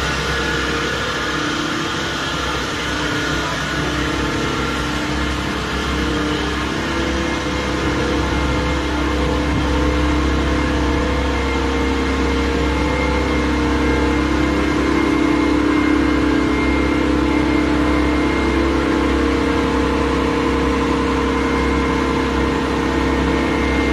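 Machinery of a running sulphonation plant: a steady mechanical drone with a deep hum and several held tones, a little louder in the middle.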